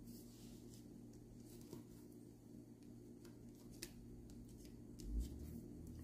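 Faint handling sounds of paper crafting: a few light clicks and small taps of paper and embellishments on a tabletop, with a soft low bump near the end as hands come back onto the paper layout.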